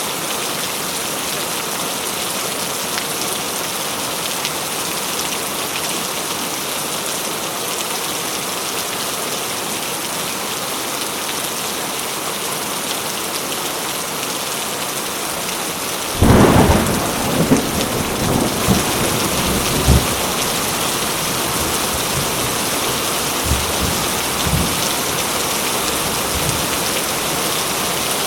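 Heavy rain falling steadily. About two-thirds of the way through, a sudden clap of thunder breaks in, then rumbles on with a few more cracks for several seconds.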